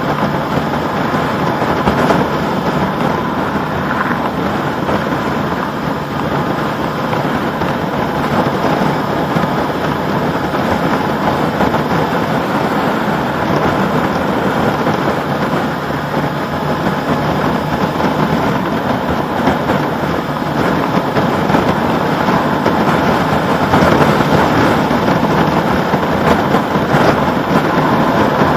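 Steady wind rush over the camera microphone at cruising speed, mixed with the Honda CB1100RS's air-cooled inline-four engine running steadily and tyre noise from the road.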